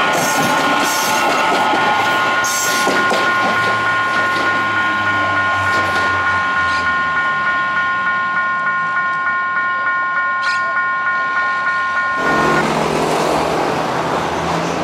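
Electric commuter trains on the line, their wheels clacking rhythmically over the rails, with a steady high chord of several tones sounding over them. About halfway through, the chord starts to pulse in quick even ticks, and it cuts off about twelve seconds in, giving way to a low steady hum.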